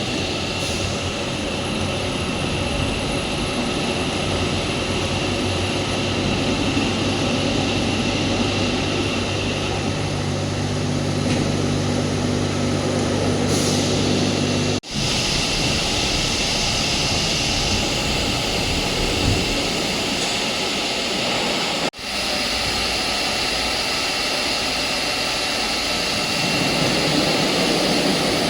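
Hydraulic concrete slab press machinery running: a steady, loud mechanical drone with a low steady hum that stops about fifteen seconds in. The sound cuts out for an instant there and again about seven seconds later.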